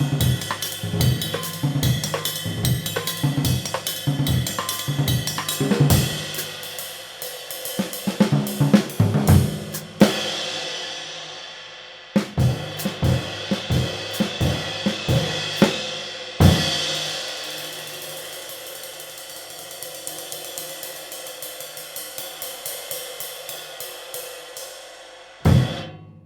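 Drum kit groove built around a handmade 19.5-inch B20 bronze light ride cymbal (1770 g), ridden over kick and snare. The ride is crashed about ten seconds in and again near the middle, ringing out in a long wash each time. Later it is ridden without the drums, and a last hit comes near the end.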